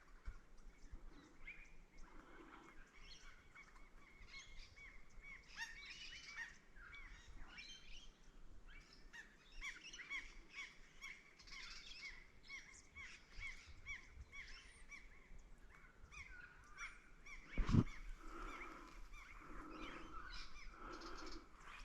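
Several wild birds calling, with many short repeated chirps going on throughout. A single sharp knock stands out about three-quarters of the way through.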